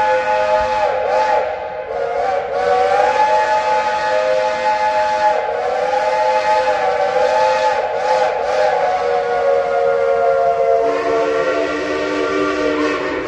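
Steam whistles of Shay geared locomotives blowing in one long, continuous chord of several notes, the pitches wavering. About eleven seconds in the chord shifts as a lower note comes in.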